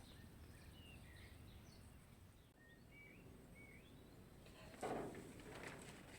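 Near silence with faint, scattered bird chirps: a handful of short high twitters. A brief soft rustle comes about five seconds in.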